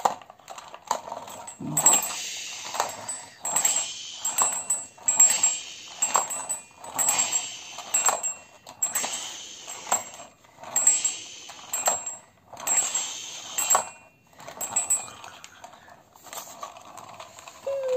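Plastic toy police motorcycle pushed back and forth by hand across a concrete floor, its plastic wheels rolling and rattling in strokes about once a second.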